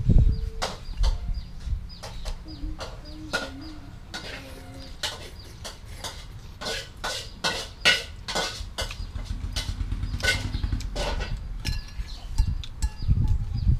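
Chopsticks and a metal spoon clicking against a ceramic bowl while noodle soup is eaten, with noodles being slurped, the clicks coming thickest in the middle of the stretch.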